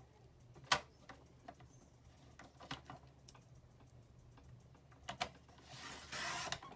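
Light clicks and taps of a sliding-blade paper trimmer as cardstock is lined up on it, the loudest under a second in. Near the end the blade is drawn along the track, cutting through the cardstock with a scraping hiss that lasts about a second.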